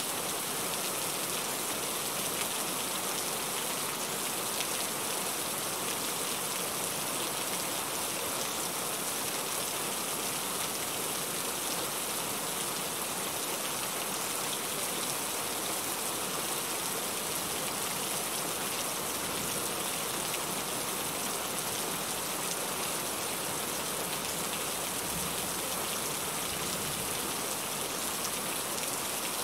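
Heavy rain falling steadily, an even hiss of many drops on surfaces with no breaks or thunder.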